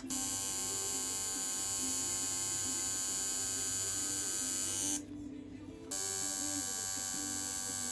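Electric tattoo machine with a cartridge needle buzzing steadily while lining along a stencil on skin; it stops for about a second some five seconds in, then starts again.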